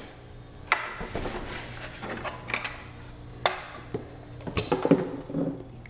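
Power cords being handled and plugged into a portable power station's outlets: a few sharp plastic clicks and knocks with rubbing in between, over a faint low steady hum.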